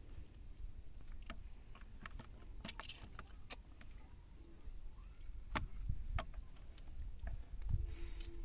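Scattered small splashes and knocks as hands and eels move in a plastic bucket of shallow water, over a low rumble.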